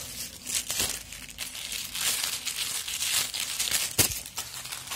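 Plastic courier mailer bag crinkling as it is handled, with one sharp click about four seconds in.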